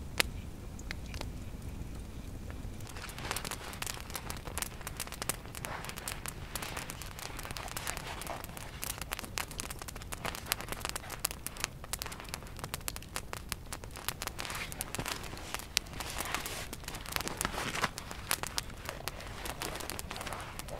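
Log campfire crackling and popping, throwing sparks: a few scattered pops at first, then dense, irregular crackling from about three seconds in.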